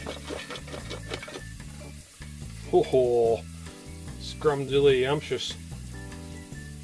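Hot food sizzling and crackling in an opened air fryer basket, under a steady background music track. A man's voice exclaims twice midway.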